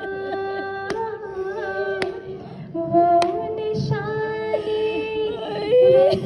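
A woman's voice singing a salam, an Urdu devotional recitation, in long held notes that glide from pitch to pitch. Sharp clicks come about once a second.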